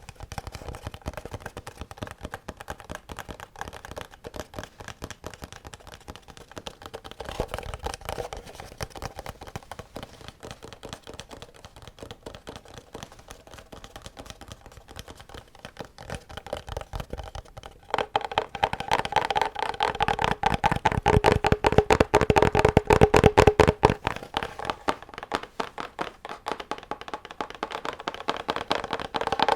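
Rapid, continuous tapping on a hollow object that rings with a couple of steady tones. It grows louder about 18 seconds in.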